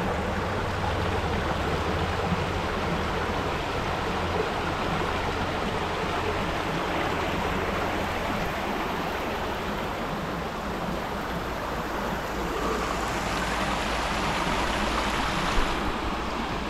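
Shallow rocky mountain stream rushing and splashing over boulders in small cascades, a steady rush of water that grows a little brighter and louder near the end.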